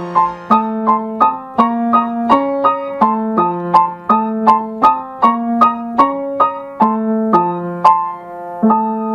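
Solo piano playing a steady rhythm of struck chords, about two to three a second, closing on a held chord near the end.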